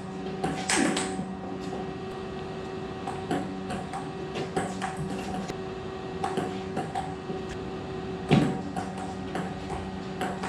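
Table tennis ball clicking off paddles and the table in quick rallies, with two louder thumps, over a steady hum.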